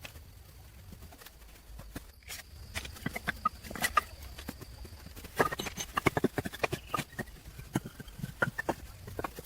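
Irregular short knocks and clicks, sparse at first and coming thick and fast from about five seconds in.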